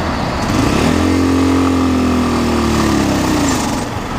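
CSC TT250 dual-sport motorcycle engine revving up, holding, then easing off as the bike moves forward through slow freeway traffic, over steady wind and road noise.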